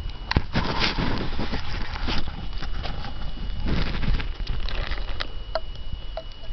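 Handling noise around a removed Garrett turbocharger: irregular rustling and light clicks, louder in the first half, with a faint steady high tone.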